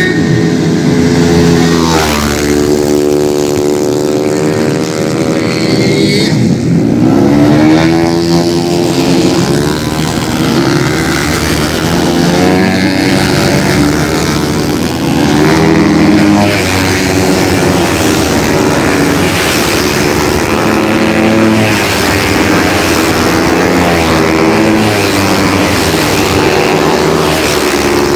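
A pack of underbone racing motorcycles, small single-cylinder engines, revving hard as they pass. Several engine notes overlap, each climbing in pitch and dropping back again and again as the riders shift and brake for the bends.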